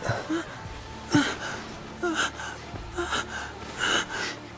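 A man's voice-acted panting and gasping moans: about five short breathy cries, roughly one a second.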